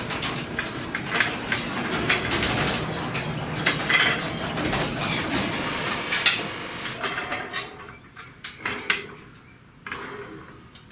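Metal tools and parts clinking and knocking against each other in a busy run of clanks and rattles that thins out after about seven seconds.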